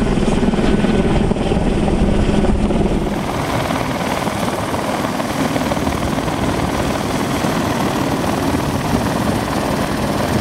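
Helicopter hovering close by with a load on a long line, its rotor and turbine running with a steady, loud drone. The sound shifts slightly about three seconds in.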